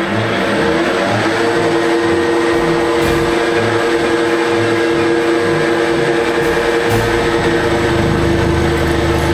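Bridgeport milling machine running, its spindle turning a friction stir welding tool pressed into clamped aluminum plates. A steady two-tone whine settles in within the first second or so, and a deeper hum joins near the end as the tool sinks into the metal.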